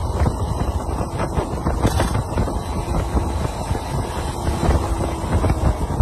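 Yamaha F1ZR two-stroke underbone motorcycle being ridden at an easy pace, its engine running steadily with a dense low rumble, warming up on the ride.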